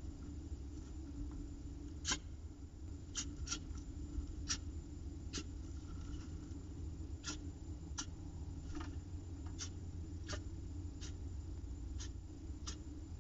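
Sharp, irregular clicks and scratches, about one a second, from a peregrine falcon shifting on the gravel of its nest box at the egg, over a steady low hum.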